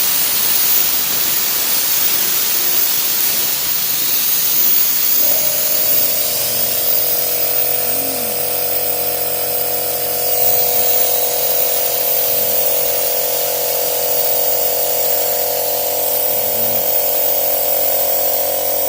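A steady hiss, joined about five seconds in by a machine's steady whine that runs on.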